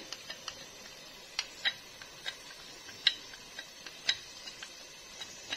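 Small plastic spoon tapping against a cut-glass dish and a steel pot while spooning chilli powder into the pot: light, irregular clicks, the loudest about three and four seconds in.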